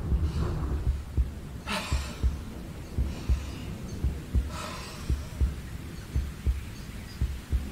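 Sound-effect heartbeat thumping at a quick pace, with two heavy breaths over it, about two seconds in and near five seconds.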